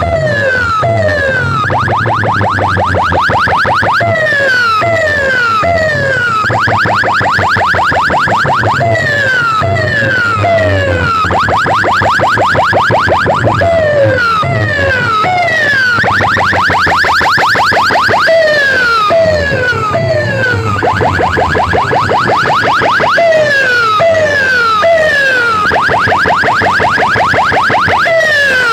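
Loud electronic multi-tone siren, like a car alarm, cycling through its patterns. A run of quick falling 'pew' sweeps, about two a second, gives way every few seconds to a fast rising warble, over a low steady hum.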